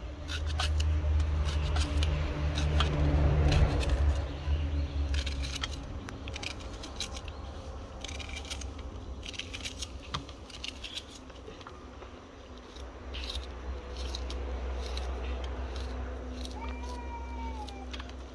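Small knife slicing a hand-held onion, making many short sharp clicks as the blade cuts through and the slices drop into a metal pot. A low rumble runs underneath, loudest in the first few seconds, and a short call rises and falls near the end.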